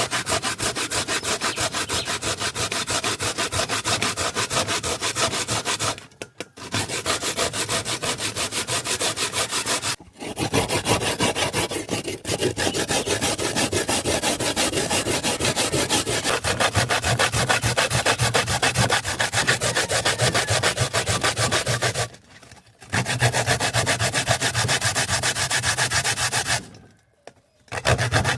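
Coconut meat being grated by hand on a grater: rapid, steady back-and-forth scraping strokes, stopping briefly four times.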